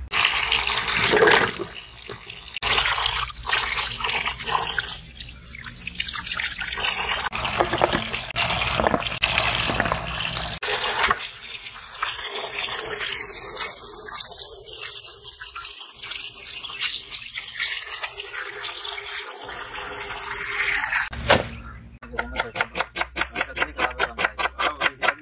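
A stream of water splashing into a steel plate while hands rub and rinse a bunch of fresh green herbs in it. Near the end, a knife slicing red onion on a wooden chopping board, quick, even strikes.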